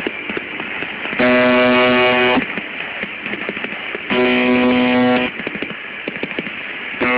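The buzz tone of UVB-76, the Russian shortwave station known as "The Buzzer", heard over a shortwave receiver. Harsh, steady buzzes about a second long repeat roughly every three seconds, two full ones with a third starting near the end, over crackling radio static.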